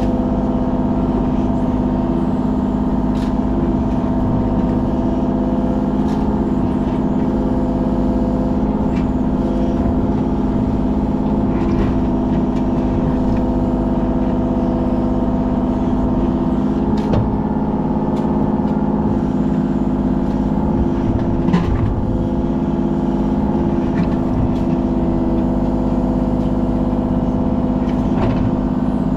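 Kubota KX033 mini excavator's diesel engine running at a steady working speed under hydraulic load, with occasional sharp knocks and scrapes from the bucket working the ground.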